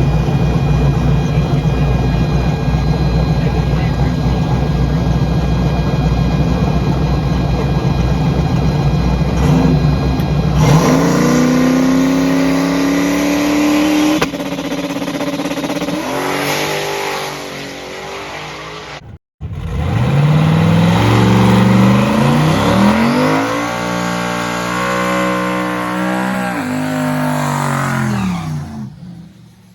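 A car engine running with a steady rumble, then accelerating hard about eleven seconds in, its pitch rising. After a brief break it accelerates again, the pitch climbing and dropping at the gear changes.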